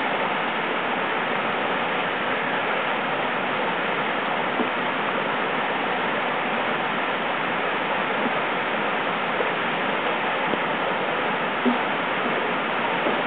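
Water pouring over Tahquamenon Upper Falls: a steady, even rush of falling water.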